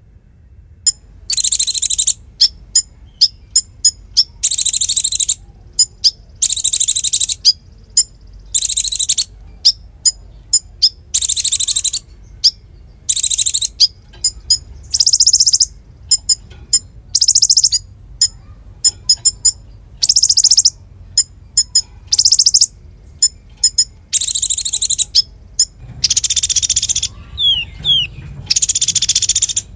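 Konin, an Indonesian cage songbird, singing in the loud 'nembak' style. High, buzzy, rapid trills of about a second repeat every one to two seconds, with sharp single chips between them. A few gliding whistled notes come near the end.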